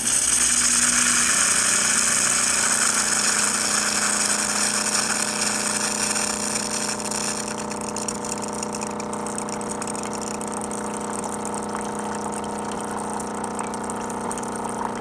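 Jura ENA 3 espresso machine dispensing hot water: its water pump hums steadily under a hiss of water running out of the spout. The hiss eases off about halfway through while the pump hum carries on.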